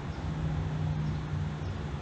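A steady low hum, like a room fan or air-conditioning unit running, with no other sound standing out.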